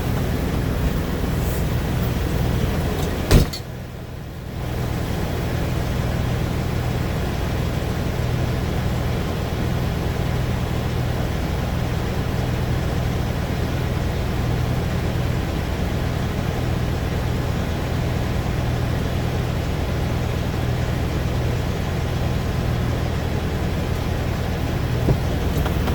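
Kenworth semi truck's diesel engine idling steadily with a constant low hum. About three seconds in there is a sharp knock, and the sound drops for about a second before the idle comes back.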